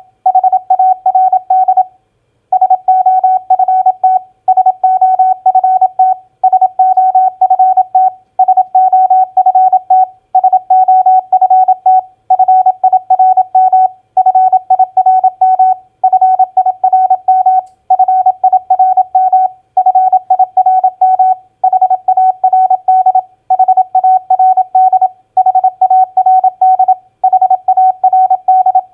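Morse code (CW) tone at 27 words per minute, sending common four-letter words: a single steady mid-pitched beep keyed rapidly in dots and dashes, with a short pause between words, about one word every two seconds.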